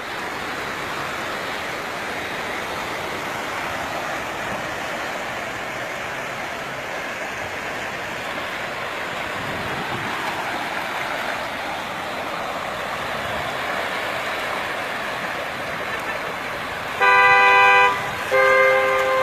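Steady hiss of heavy rain and running floodwater on a street, then a car horn honks twice near the end, two long blasts, much louder than the water.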